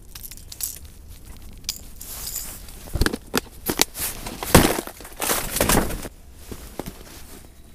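Gloved hands handling fishing gear right at the camera, with a glove rubbing against the microphone: rustling and a run of sharp clicks and knocks, the loudest about four and a half seconds in.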